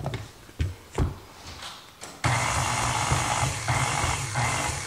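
A few light knocks, then about two seconds in a KitchenAid Artisan stand mixer's motor switches on and runs steadily, beating dry powdered sugar in its steel bowl.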